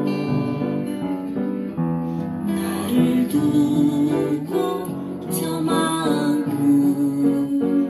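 Upright piano played with both hands: a slow melody over sustained chords.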